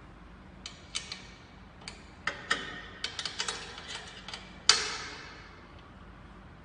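Scattered sharp metal clicks and knocks as the screen clamp hardware and aluminium screen frame of a manual screen printing press are handled and adjusted. Near the end comes one louder metal clank that rings on for about a second.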